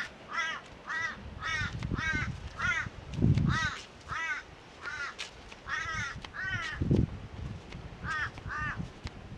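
A crow cawing over and over, about two harsh calls a second, with a short pause near the end. Two low rumbles stand out about three and seven seconds in.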